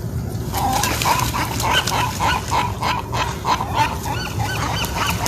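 An animal yelping in a rapid string of short, high calls, starting about half a second in.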